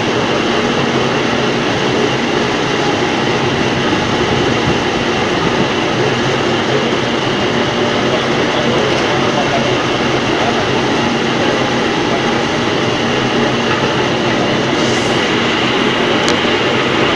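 MAXIA MX-LP220 industrial washer-peeler running steadily, cassava roots tumbling and rubbing in the peeling drum with a constant clattering rush and a motor hum underneath.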